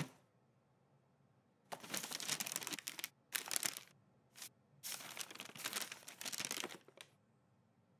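Paper crinkling and rustling as a box is wrapped in wrapping paper, in four bursts of handling with short pauses, stopping about seven seconds in. A single sharp click at the very start.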